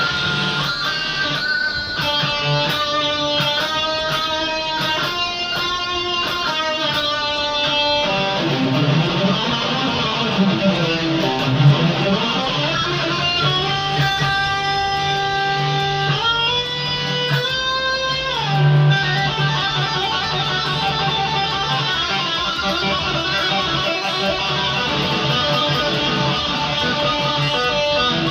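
Custom-built hybrid guitar played on its bridge pickup: held single notes and chords, with sliding notes around ten seconds in and fast picked notes near the end.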